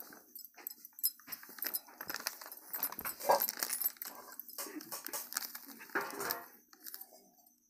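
A dog making short calls a few times, the loudest about three seconds in, over the light rustle of plastic food packets being handled.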